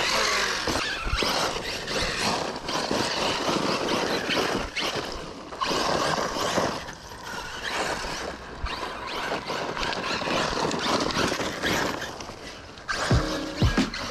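Electric Arrma Talion RC truck with a TP brushless motor driving on loose dirt and wood chips: motor whine and tyre noise on the loose surface, rising and falling in surges as the throttle is worked.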